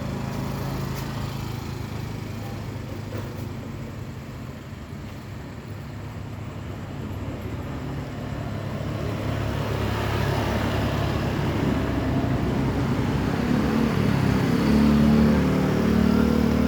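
A motor vehicle engine running, growing steadily louder and strongest near the end.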